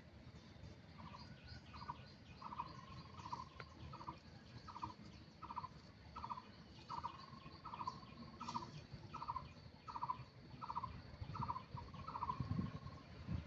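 A bird calling faintly, repeating a short rattling note about one and a half times a second. A low rumble rises near the end.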